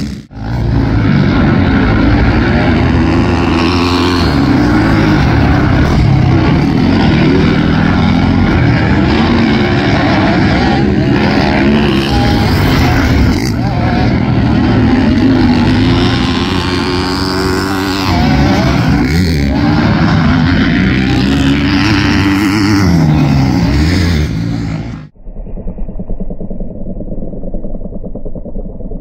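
Motocross dirt bike engine revving hard on a practice lap, its pitch climbing and dropping over and over with throttle and gear changes. About 25 seconds in the sound cuts suddenly to a quieter, steadier engine note.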